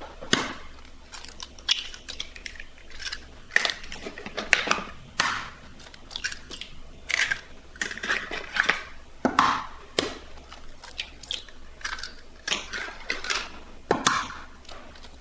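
Fresh eggs being cracked one after another into a mixing bowl: sharp taps of shell and the crunch of shells breaking open, at irregular intervals.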